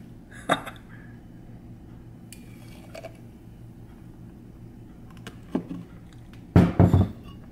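Glass and a blender jar handled while a thick milkshake is poured: a sharp clink about half a second in, a soft pour in the middle, and a cluster of loud knocks near the end as the jar is set down. A steady low hum runs underneath.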